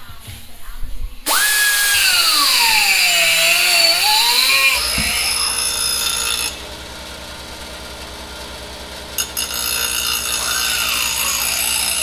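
High-speed die grinder grinding metal out of a tube so the two halves slip together. Its whine starts about a second in and dips sharply in pitch as the bit bites under load, then rises again. It drops to a low hum for a few seconds, then grinds again near the end.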